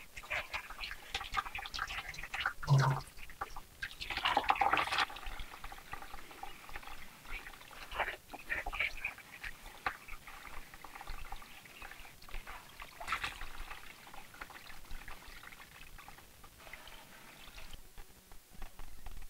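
Wet blended melon-seed pulp squelching as a hand squeezes and rubs it in a plastic sieve, the milky liquid trickling and dripping through into the basin below. Soft, irregular wet squishes and splashes.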